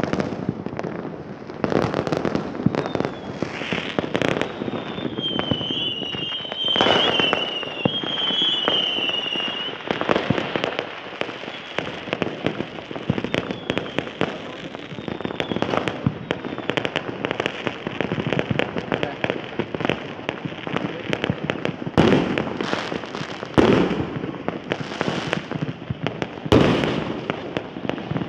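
Fireworks and firecrackers going off together in a dense, continuous crackle of many small bangs. Heavier booms come about two seconds in, around seven seconds, and three times in the last third. A wavering high whistle runs for several seconds near the start.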